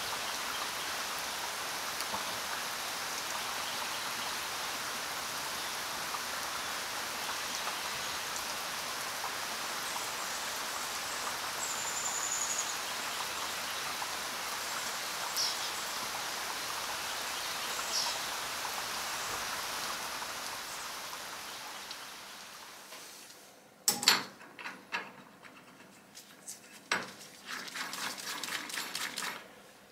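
Carbide parting insert cutting through a stainless steel bar turning in a Colchester lathe: a steady hiss of the cut with a few brief high squeaks. The cut ends about 22 seconds in, and several sharp clicks and knocks follow near the end.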